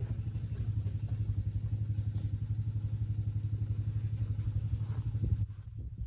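An engine running steadily at idle with a fast, even low throb, dropping away suddenly about five seconds in.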